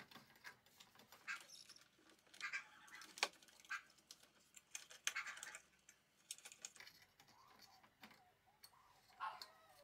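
Faint, scattered clicks and scrapes of a Makita 5604R circular saw's bevel tilt being set by hand: its metal base plate is shifted and its lock knob worked. The sharpest click comes about three seconds in.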